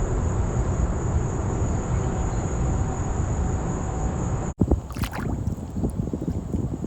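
Wind buffeting the microphone on a kayak, a steady low rumble. It cuts off suddenly about four and a half seconds in, and a few short knocks and rustles follow.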